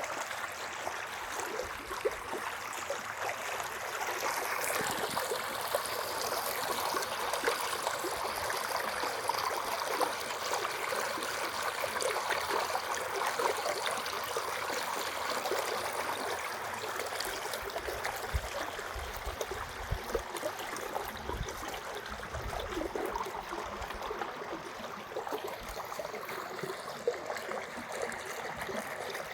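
A small stream running steadily through a channel it has cut in rock, a constant rush of water. A few low rumbles come through about two-thirds of the way in.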